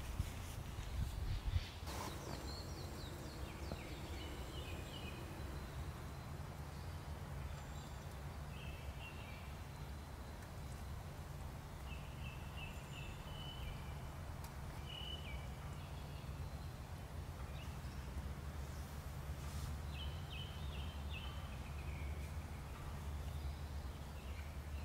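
Small birds chirping in short clusters every few seconds over a steady low rumble, with a few clicks in the first two seconds.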